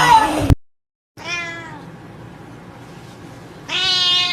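A domestic cat meowing twice: a short meow just over a second in and a louder one near the end. Before that, a loud sound cuts off abruptly about half a second in, followed by a moment of dead silence.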